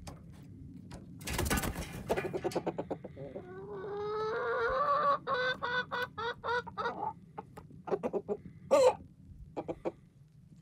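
Chickens clucking, with one long drawn-out call from about three and a half seconds in that breaks into a run of separate notes near its end, and short clucks after it. A brief rustling noise comes about a second and a half in.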